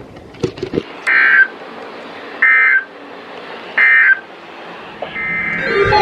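Three short, identical bursts of EAS digital data tones, a rapid warbling chirp: the SAME end-of-message code that closes an emergency alert broadcast. The bursts come a little under a second and a half apart over low radio hiss. Music with steady tones starts near the end.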